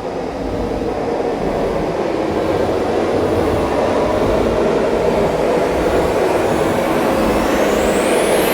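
Cinematic riser sound effect: a dense rumbling noise swelling steadily louder, with a thin whistling tone sweeping upward near the end.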